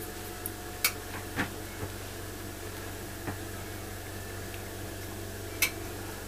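Steady hiss of a lampworking bench torch's flame, with sharp clicks from the bead kiln's relay as it cycles: two loud clicks about a second in and near the end, and a few fainter ones between.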